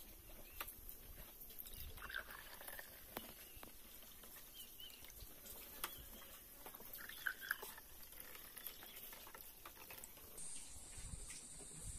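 Faint pouring of juice from a steel pot into glass tumblers, with scattered light clicks and a few faint chirps.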